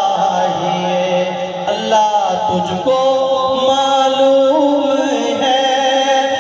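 A man singing an Urdu naat solo into a microphone, drawing out long, ornamented held notes; a new phrase begins about halfway through.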